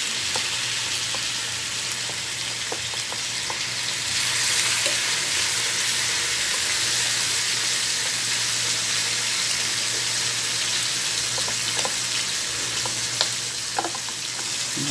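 Hot oil sizzling steadily in a frying pan as raw seasoned chicken pieces are laid in to sear. The sizzle grows louder about four seconds in, with a few faint clicks near the end.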